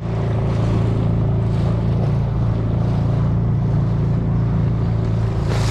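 Outboard motor of an inflatable boat running steadily under way, with a steady hiss of wind and water over it.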